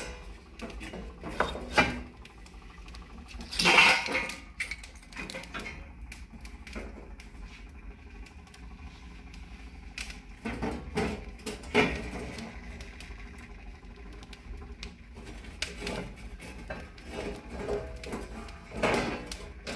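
Irregular metallic clatter and knocks, with louder knocks about 4 s in, around 11 to 12 s in and near the end, over a low steady hum.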